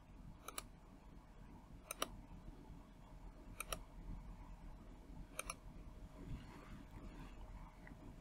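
Faint, sharp clicks of a computer mouse button, some in quick pairs, about four times a second or two apart, over a low steady hum.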